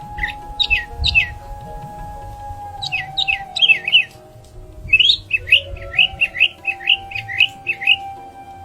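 A bird calling in three quick runs of short, downward-sliding chirps, over soft background music with long held tones.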